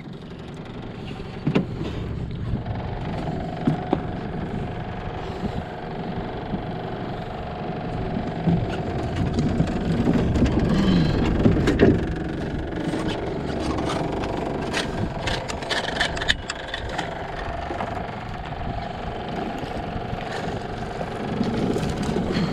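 A steady motor hum over a haze of wind noise, with scattered knocks and clatter in the middle.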